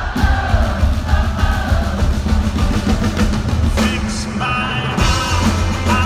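Live pop-rock band in concert: a lead vocal sung over drums, bass and a full band mix, heard from the audience.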